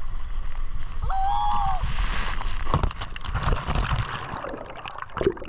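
Water rushing and splashing on a water-park slide, loudest a couple of seconds in and fading toward the end, with a brief high held tone about a second in.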